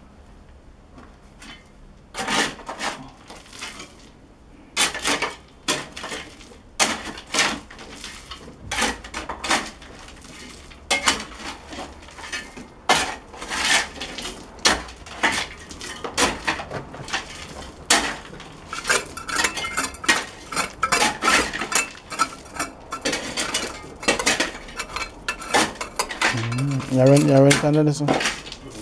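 A metal shovel digging into and scraping through a heap of crushed rock and gravel, with irregular clinks and knocks as the blade strikes stones.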